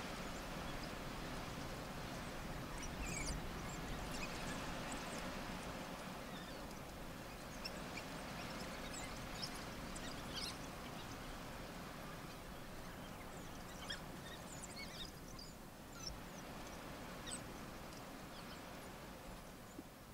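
African wild dogs, adults and pups, giving scattered short, high-pitched twittering chirps and squeaks over a steady hiss.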